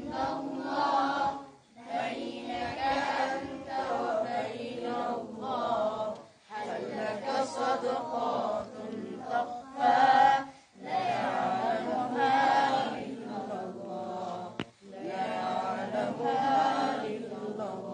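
A group of boys singing an Islamic nasheed together without instruments, in phrases of a few seconds broken by short pauses for breath.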